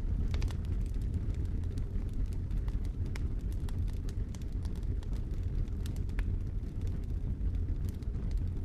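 Dry leaves being crushed and crumpled, giving irregular sharp crackles over a steady low rumble.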